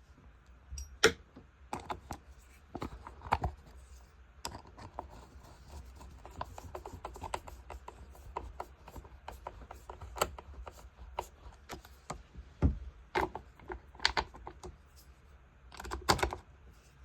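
Irregular light clicks, taps and rubbing of hand work on a leaf blower's plastic housing as the air filter cover is fitted and its two small Phillips screws are turned back in.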